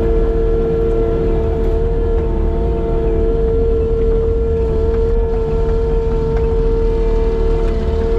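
A machine's engine running steadily at constant speed: a low rumble under an unchanging whine, with no revving.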